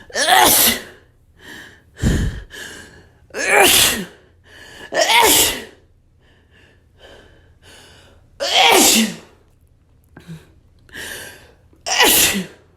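A person sneezing five times in a row, each loud sneeze ending in a falling voiced tail. Short quick inhales come between them, and a low thump sounds about two seconds in.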